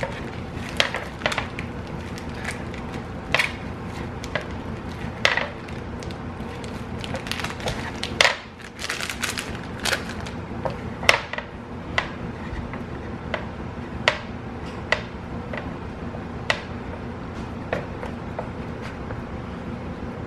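A plastic cheese bag crinkling as it is opened and handled, then a block of Colby Jack cheese rubbed across a flat stainless-steel grater on a wooden cutting board, with scattered sharp scrapes and knocks.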